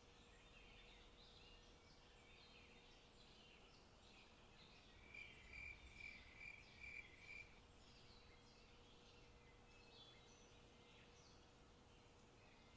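Faint forest birdsong, several small birds chirping. In the middle, one bird calls a quick run of about six short, even notes, louder than the rest.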